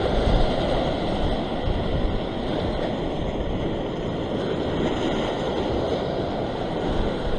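Surf breaking and washing over a rock ledge: a steady rushing wash of seawater, with wind rumbling on the microphone.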